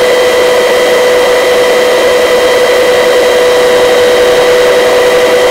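Helicopter in flight heard from on board: a steady rushing drone of engine and rotor, with a constant whine running over it.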